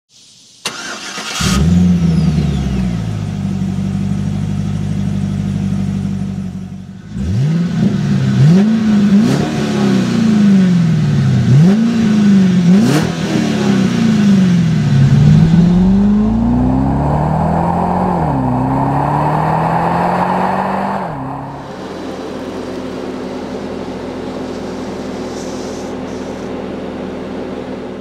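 2015 Cadillac CTS-V Coupe's supercharged 6.2-litre LSA V8 heard through its dual exhaust. It starts about a second in and settles to a steady idle. From about seven seconds in it is revved again and again, the pitch rising and falling with each blip, with a longer rev held near twenty seconds. For the last few seconds it drops back to a steady idle.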